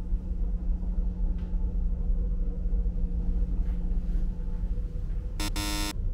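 Low, steady drone of a ferry's machinery heard inside the ship. Near the end, a short buzzy electronic sound effect lasting about half a second.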